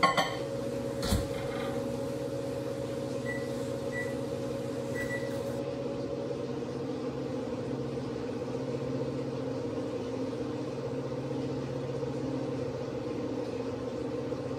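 Victron MultiPlus-II 5 kVA inverters humming steadily under a heavy load of about 6.5 to 8 kilowatts, a hum of several steady tones. A knock comes about a second in, three short high beeps follow a few seconds later, and one of the higher tones in the hum stops about halfway through.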